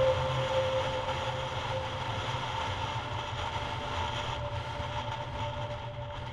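Yamaha MT-03's parallel-twin engine running with wind rush at highway riding speed, gradually getting quieter, with a steady droning note held underneath.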